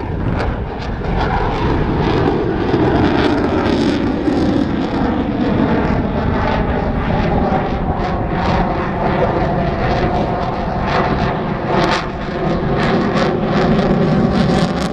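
Twin F414 turbofan jet engines of a U.S. Navy F/A-18F Super Hornet, loud, their tone falling in pitch over a few seconds and then holding steady, with a rough crackle throughout.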